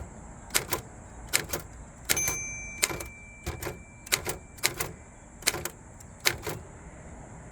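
A 1947 Royal KMM manual typewriter being typed on: irregular, sharp key strikes, a few a second. The margin bell rings once about two seconds in. The typing stops about a second before the end.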